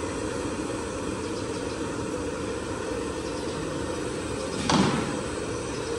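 A large metal cooking-pot lid clattering once as it is picked up, about three-quarters of the way through, over a steady low rumble.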